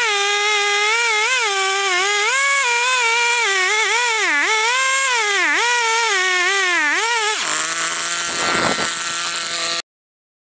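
Two-stroke chainsaw mounted in a chainsaw mill, running at high revs and cutting through a log, its pitch dipping again and again as the chain loads up in the wood. About seven and a half seconds in it drops to a much lower note, then cuts off suddenly near the end.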